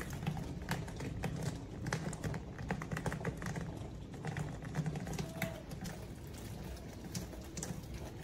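Heavy rain with runoff spilling down a rain chain of metal cups: a steady low rush of water broken by many irregular drip taps and spatters.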